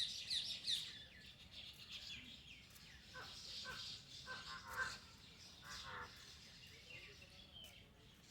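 Several birds calling and chirping together, opening with a quick run of high, falling chirps in the first second, followed by assorted shorter calls of different pitches.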